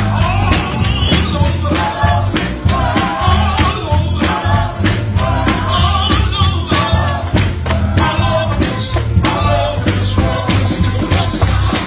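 Upbeat Pentecostal gospel music: singing voices over a driving tambourine and percussion beat with heavy bass.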